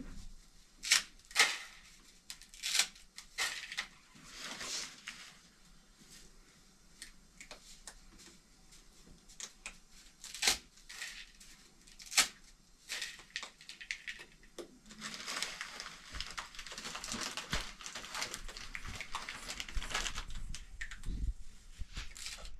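Irregular sharp knocks and clicks, a dozen or so, loudest in the first five seconds. They are followed by a stretch of rough, hissing noise that runs for several seconds.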